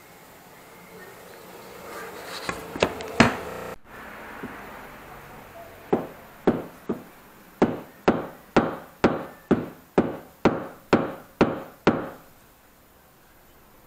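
Hammering on a knife at the workbench: about a dozen sharp knocks at an even pace of roughly two a second, each ringing briefly. A few irregular knocks come before them.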